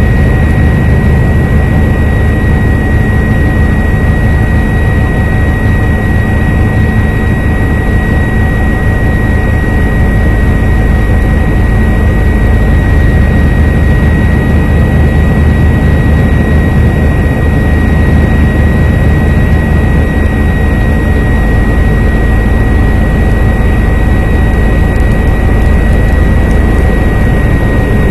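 Helicopter running steadily and loudly: a constant deep rotor and engine noise with a steady high-pitched whine over it.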